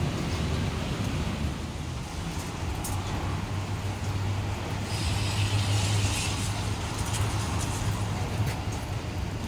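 Randen tram running slowly over rail points, with a steady low hum and rumble. A brief hiss about five seconds in.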